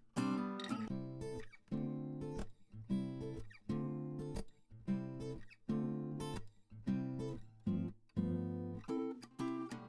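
Background music: strummed acoustic guitar chords at a steady rhythm.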